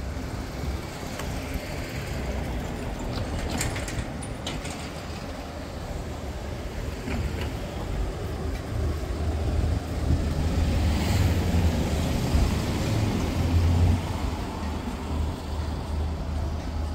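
Street traffic noise: a motor vehicle's low engine rumble builds from about halfway through, peaks near the end and then eases. A few sharp clicks come about four seconds in.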